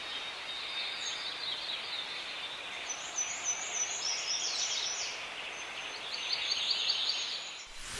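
Small birds chirping in quick runs of short high notes over a soft steady hiss, used as nature background sound. A loud rushing noise comes in suddenly at the very end.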